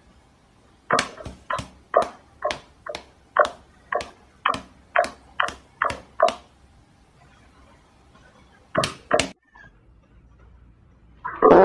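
A cat's paw and a person's hand slapping together in quick, light pats, about two a second for five seconds, then twice more a little later. Near the end comes a short, loud, noisy burst.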